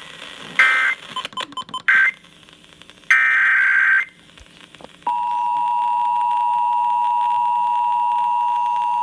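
Emergency Alert System tones over radio. First come three short bursts of screeching digital data tones. Then, about five seconds in, the steady two-tone attention signal (853 and 960 Hz together) starts and holds.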